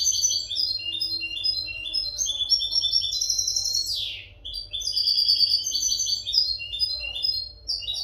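European goldfinch song: a fast, tinkling run of short high twittering notes. About halfway through comes one sharp note sliding steeply down, then a short pause before the twittering picks up again.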